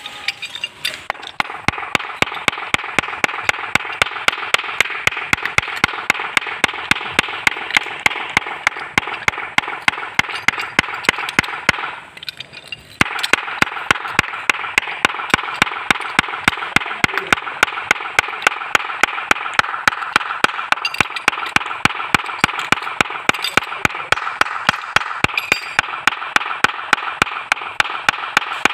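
Hammer tapping steadily on a steel pipe nipple used as a hole punch, driving it through a thick leather cup gasket resting on a wooden block. Quick, even taps, about three a second, with a short pause about twelve seconds in.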